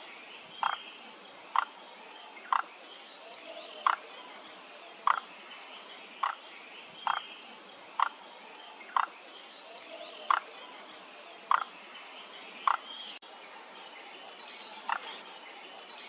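Frogs calling: one frog gives short, loud croaks about once a second, pausing briefly near the end, with fainter calls from other animals behind it.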